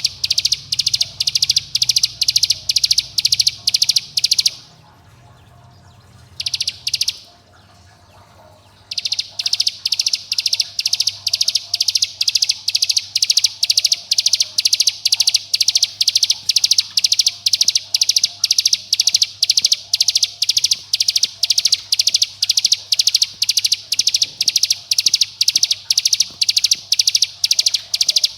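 Ciblek gunung (a prinia) giving its rapid call, high notes repeated evenly at about two a second, with two short breaks about five and seven seconds in.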